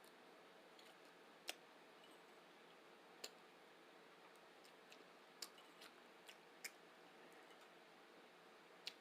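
Near silence: faint room tone with a steady low hiss, broken by about seven small, sharp clicks scattered unevenly, the clearest about one and a half seconds in and near the end.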